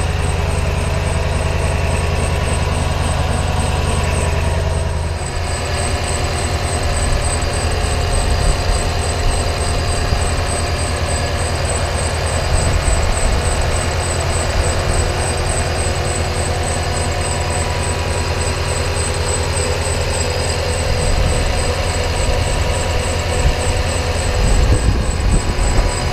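Toyota Tundra V8 idling just after start-up, with a steady high-pitched squeal from the engine's accessory drive belt: a belt squeal, not the brakes.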